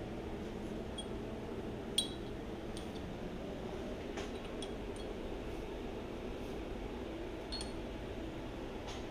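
A few small metallic clicks and clinks as a hand handles parts of a gear-head engine lathe, with one sharp click about two seconds in, over a steady low hum of shop background noise.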